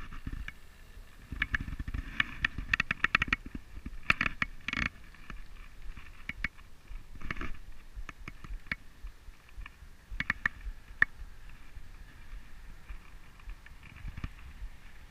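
Handling noise from a spinning rod and reel being picked up and held: scattered clicks, rustles and knocks in several short clusters, with a low rumble early on. A faint steady high-pitched drone runs underneath.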